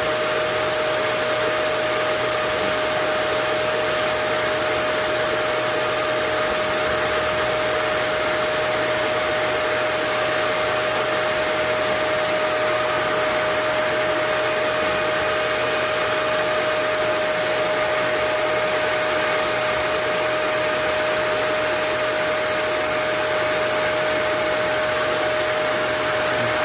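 Vacuum cleaner running steadily through a homemade angled hose, sucking lint out of the clogged air vent under a gas water heater: a loud, even rush of air with a steady whine.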